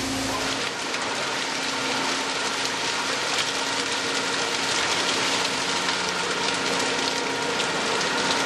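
Steady din of fish-processing machinery and conveyor belt aboard a factory trawler, with running water and a constant hum and faint rattling ticks.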